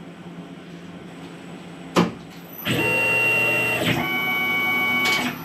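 A click, then a machine tool's electric motor runs with a steady whine for about two and a half seconds, shifting pitch partway through before stopping.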